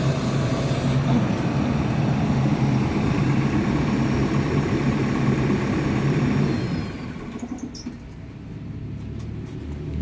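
Diesel engine of a JCB backhoe loader running steadily at idle. About seven seconds in, the engine sound drops away to a much quieter background with a few light clicks.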